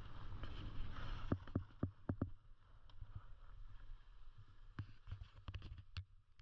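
Skis sliding on groomed snow, heard through a helmet- or body-mounted action camera, with low wind rumble on the microphone. The hiss of the skis fades about halfway through as the skier slows. Sharp clicks and knocks come at irregular intervals throughout.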